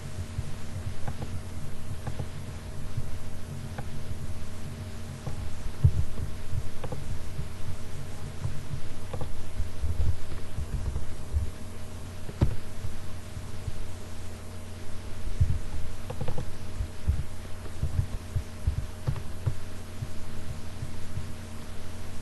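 Steady low electrical hum with irregular soft low thumps and occasional brief clicks.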